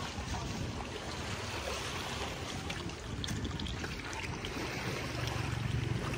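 Wind on the microphone over small waves washing at the shoreline of a sandy beach, a steady noisy wash with a few faint clicks; a low rumble swells near the end.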